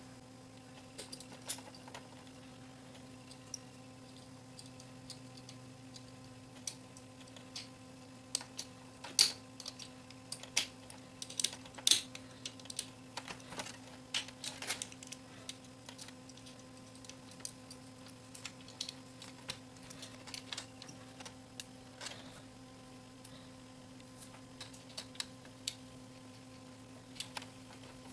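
Irregular small metallic clicks and taps of screws and a screwdriver against a cassette deck's metal motor bracket and chassis during reassembly, thickest and loudest in the middle stretch. A steady low hum runs underneath.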